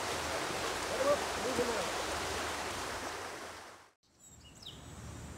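Steady rushing of a woodland creek, with faint voices in the distance. It fades out about four seconds in, leaving a much quieter stretch with one short high bird chirp.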